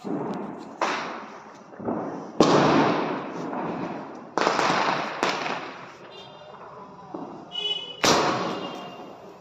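Sky-shot firework cake firing: a string of about seven sharp bangs at uneven intervals, each trailing off, with a brief whistling tone a little before the last one.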